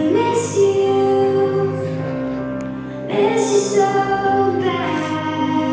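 A song with a woman singing over held instrumental notes, in two sung phrases.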